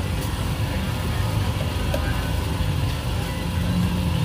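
An engine running steadily with a low hum, with a couple of faint clicks.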